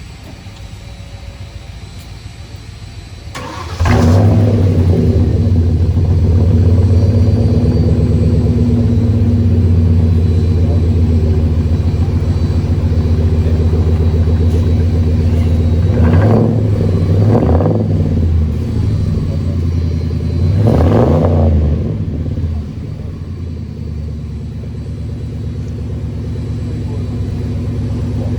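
Ford Crown Victoria's 4.6-litre V8 starting up about three and a half seconds in, then running at a steady idle. It is revved briefly twice in the middle and settles to a quieter idle near the end.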